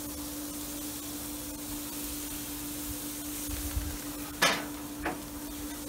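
Chicken wings sizzling on a hot gas grill, a steady hiss, with two sharp clacks of metal tongs against the grill about four and five seconds in.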